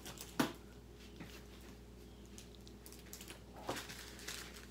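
Quiet handling of a diamond painting canvas under its plastic film as it is pressed flat by hand, with one sharp tap about half a second in and a brief soft rustle near the end.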